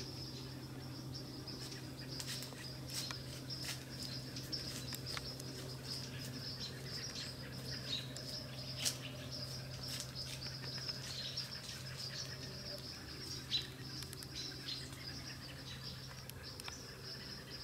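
Woodland ambience at dusk: a steady high-pitched insect trill, with many short clicks and chirps scattered over it from about two seconds in, and a faint low steady hum underneath.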